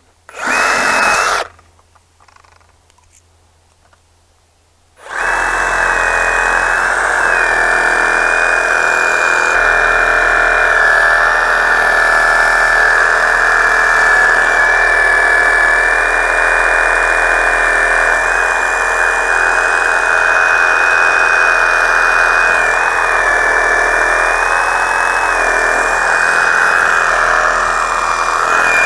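Ryobi compact cordless reciprocating saw cutting through a fresh pine limb about 4 inches across. It runs in a short burst about half a second in, stops, then starts again about five seconds in and runs without a break, a steady high motor whine over the blade sawing.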